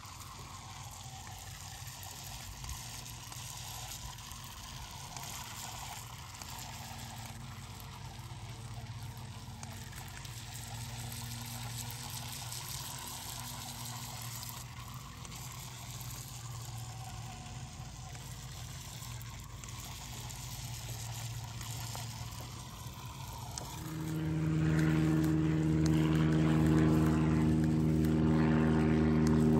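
Small electric motor of a toy RC boat running on the water, a faint steady whir over water noise. About 24 seconds in, a much louder steady hum with several pitches sets in and holds.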